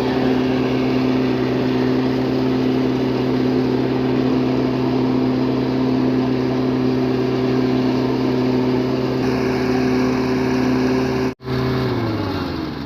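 A small engine running steadily at constant speed, then slowing down near the end.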